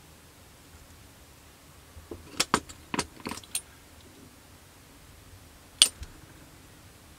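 Small plastic model-kit parts and hand tools being handled on the workbench: a quick cluster of light clicks and taps two to three and a half seconds in, then one sharp tap near six seconds.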